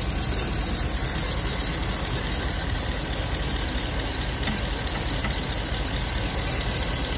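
Engine running with a fast, high-pitched chirping squeak from the serpentine belt's spring-loaded tensioner, metal rubbing on metal, over a low steady engine hum. The squeak is the sign of a dry tensioner, which the owner finds to be the culprit once silicone lubricant sprayed into it quiets the noise.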